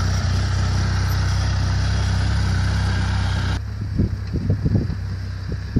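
Side-by-side utility vehicle's engine running steadily. About three and a half seconds in the sound cuts abruptly to gusts of wind buffeting the microphone, with the engine fainter beneath.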